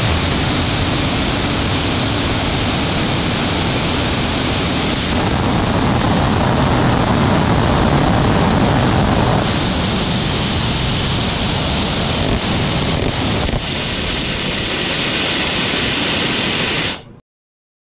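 Liquid bi-propellant rocket engine on a static test stand firing with a steady, loud, hissing roar. It grows louder about five seconds in as the engine is throttled up toward 95 lbf, eases off later, then cuts off suddenly.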